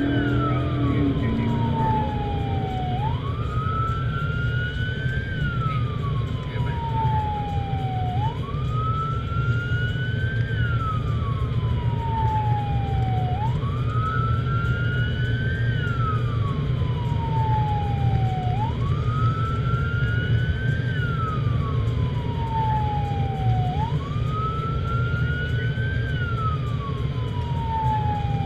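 Emergency vehicle siren on wail, heard from inside the cab of the responding vehicle: the pitch rises quickly, then falls more slowly, repeating about every five seconds. Steady road and engine rumble runs underneath.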